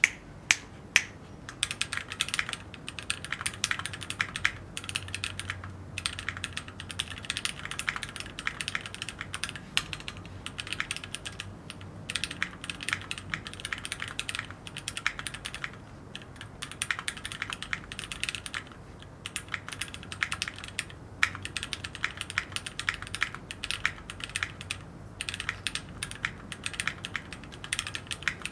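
Typing on a Keychron Q1 aluminium gasket-mount mechanical keyboard: a few separate keystrokes, then fast continuous typing with short pauses. The bottom row has a pinging ring, which the reviewer puts down to the tissue-thin foam under the keyboard.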